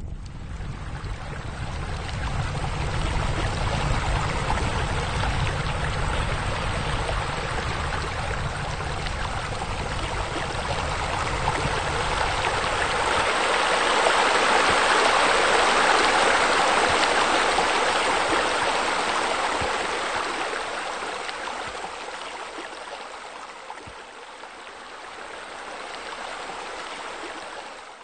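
Water splashing from pool deck jets and a spa spillover: a steady rushing that swells to its loudest in the middle and fades toward the end, with a low rumble under it in the first half.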